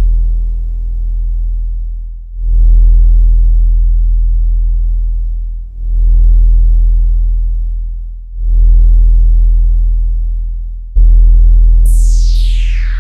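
Bass-boosted subwoofer test track: a very deep synthesized bass note hits hard about every two and a half to three seconds, and each hit fades slowly. About a second before the end, a tone sweeps steeply down from a high whistle into the bass.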